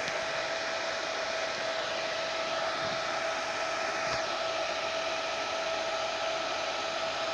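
Hair dryer running steadily: an even rush of blown air with a constant motor whine.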